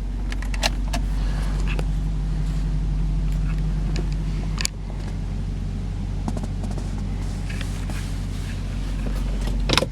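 Cadillac CTS-V's supercharged 6.2-litre V8 idling steadily, heard from inside the cabin, with a few sharp clicks: one about half a second in, one near the middle and one near the end.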